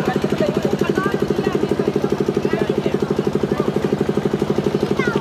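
An engine idling steadily, with a fast, even throb of roughly ten to twelve beats a second.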